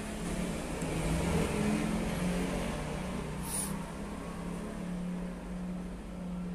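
Low motor hum whose pitch wavers slightly, growing louder about a second in and then easing off, with a brief high hiss about three and a half seconds in.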